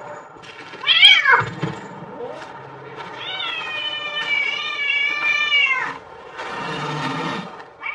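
A cat meowing: a short loud meow that rises and falls about a second in, then one long drawn-out meow lasting nearly three seconds.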